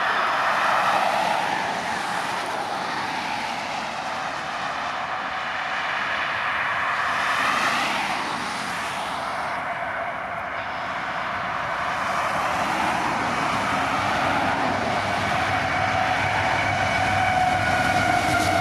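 Diesel locomotives of a test train running past: a continuous heavy rush and rumble, with a whining tone that climbs slowly in pitch over the last few seconds.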